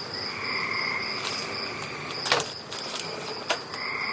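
Night insects trilling steadily, a high continuous chirring with a second, lower band that comes and goes. A couple of sharp clicks or knocks sound in the middle.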